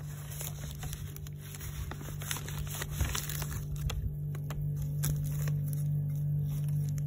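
Plastic soil bag crinkling and a metal trowel scooping potting soil and tipping it into a plastic planter, in short scattered rustles and scrapes. A steady low hum runs underneath and grows louder about four seconds in.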